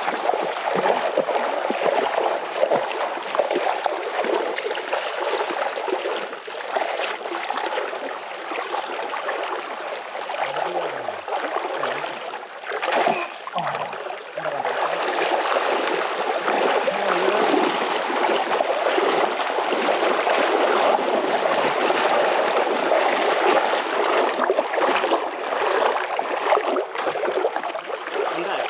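Steady rush of flowing river water, an even hiss with no break through the whole stretch.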